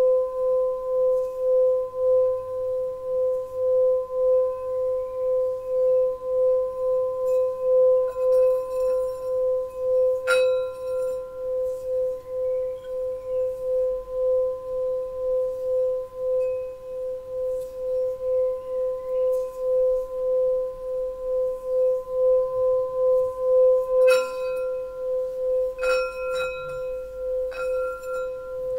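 Small Tibetan singing bowl rimmed with a wooden mallet, giving one sustained tone with an even, wavering pulse. The mallet clinks lightly against the rim about ten seconds in and a few times near the end.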